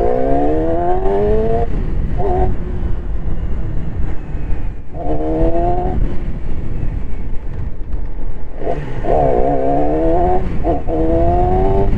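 Yamaha R6's inline-four engine under way, accelerating in several pulls. Each time the revs climb steadily for a second or two, then cut off and start climbing again.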